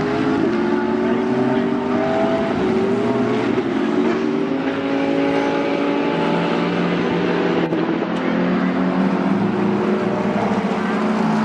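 Several GT3 race car engines running at once, their pitches overlapping and slowly rising as the cars accelerate.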